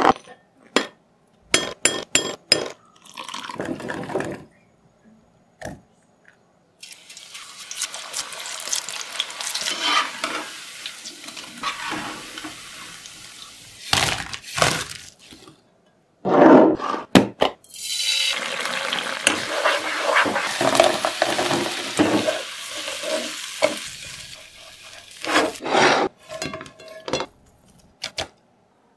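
Cauliflower frying in hot oil: two long stretches of steady sizzling, with sharp clicks and clatter of utensils before, between and after them.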